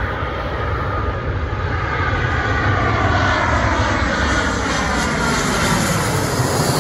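Airbus A320's twin turbofan engines on landing approach as the airliner passes low overhead: a steady jet rumble with whining tones that glide downward as it goes by, loudest in the middle.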